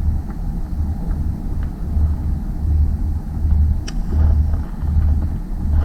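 Wind buffeting the microphone on an open boat: a low rumble that swells and drops in uneven gusts, with a faint click about four seconds in.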